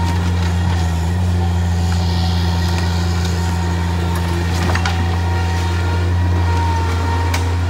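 Compact stand-on track loader running steadily, with a low engine hum and a faint high whine. Two sharp knocks come through, one about four and a half seconds in and one near the end.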